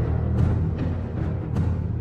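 Background soundtrack music: deep sustained low notes with two sharp drum strikes about a second apart.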